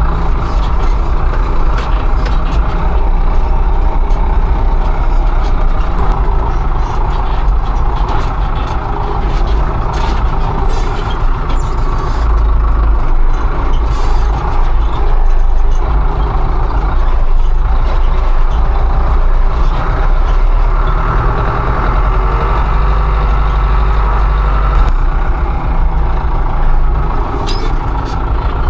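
Loud engine of a tillage machine running steadily while working the soil, its load rising and falling a little.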